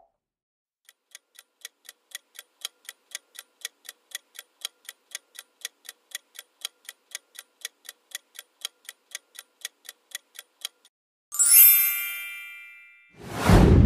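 Quiz countdown-timer sound effect: a clock ticking about four times a second for about ten seconds, then a bright chime that rings out and fades as the answer is revealed. Near the end comes a loud whoosh.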